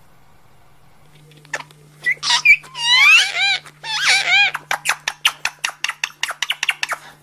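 Indian ringneck parakeets chattering, starting about two seconds in. Loud warbling squawks rise and fall in pitch, then give way to a fast run of short clicking calls.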